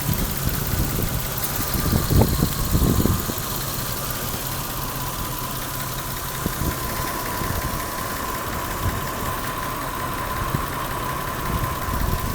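Toyota 7M-GTE turbocharged inline-six idling roughly with an uneven, inconsistent note and a steady high whine alongside; there are a few louder irregular pulses about two to three seconds in. The owner says it almost feels like one cylinder misfiring, though he doubts that is the cause.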